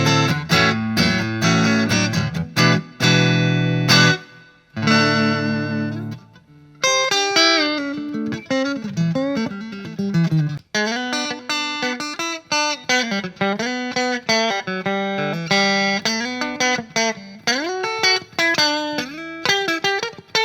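Main Street Stratocaster-copy electric guitar played: strummed chords for about the first four seconds, then after a short pause, single-note lead lines with notes bending in pitch.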